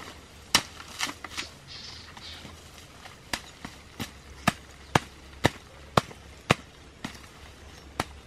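Machete blade chopping into an earthen black-ant nest on a stick, knocking it apart over a woven tray. Sharp knocks come twice near the start, then settle into a steady run of about two a second from about three seconds in.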